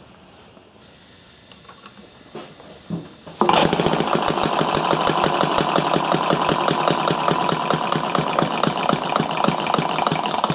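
Thompson model engine, built from a casting kit, catching about three seconds in on a cold start and running with a fast, even clatter of firing strokes, then stopping near the end.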